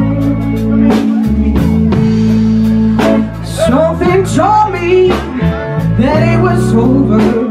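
A live blues band plays a slow ballad: Les Paul-style electric guitar, bass and drum kit. From about three seconds in, a melody line with bent, wavering notes comes in over the top.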